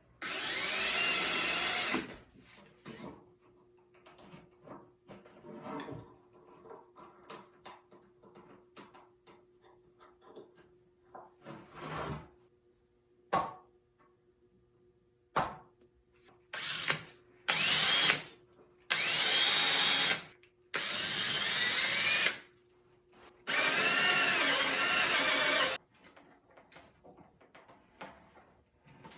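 Power drill boring bolt holes through pine boards in several short bursts, the motor pitch rising and falling with the trigger: one burst near the start and a run of five from about two-thirds of the way in. Light knocks and handling clicks in between.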